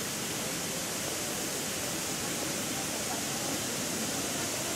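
Steady hiss of a sprinkler installation spraying a fine water mist.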